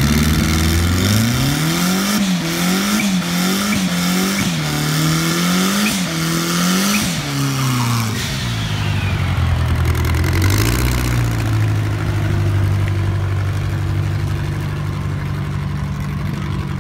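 Ford Pinto drag car's 2.3-litre four-cylinder engine revved hard over and over during a burnout, the rear tyres spinning, its pitch rising and falling about once a second. Around eight seconds in the revs drop and it settles to a steady low running note.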